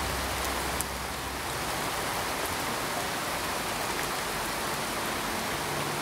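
Steady rain falling: an even hiss with a few faint ticks.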